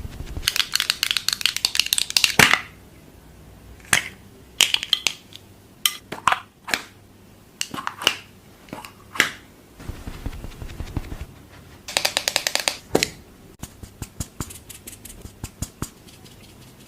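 Fast tapping and clicking on makeup items. There is a quick rattling run of taps near the start and another about twelve seconds in, with single sharp clicks in between and lighter ticks near the end.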